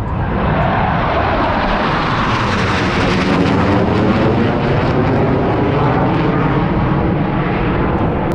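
Blue Angels F/A-18 Super Hornet jet flying past, a loud roar that swells about half a second in, with a sweeping change in tone as it passes.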